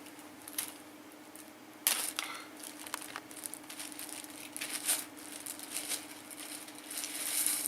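Plastic pieces of a Girder and Panel building set being handled and set down into piles: scattered light clicks and rustles, a few sharper taps about two seconds and five seconds in, over a faint steady hum.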